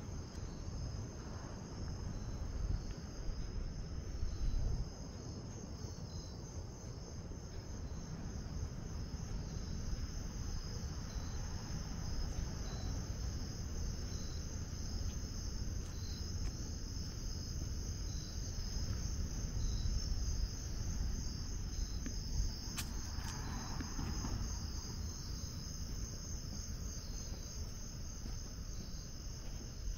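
Crickets chirping steadily in a continuous high, pulsing chorus, over a low rumble.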